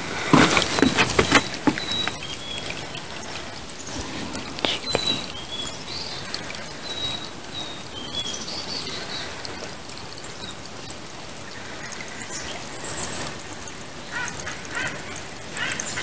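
Shallow woodland creek trickling, with a few footsteps on the trail at the start and a few faint, high bird chirps. Near the end, acorn woodpeckers start up a run of quick repeated calls.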